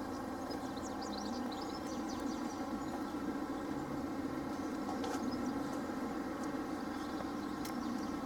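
Level crossing warning alarm sounding continuously as a steady pitched tone, warning that a train is due. Birds chirp faintly over it during the first few seconds.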